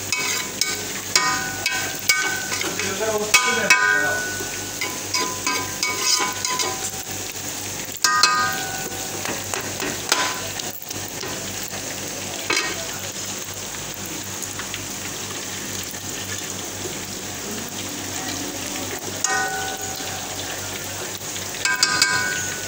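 Sliced onions, peppers and tomatoes sizzling in a frying pan while a metal slotted spoon stirs them, scraping and clinking against the pan in spells, most busily in the first several seconds and again near the end.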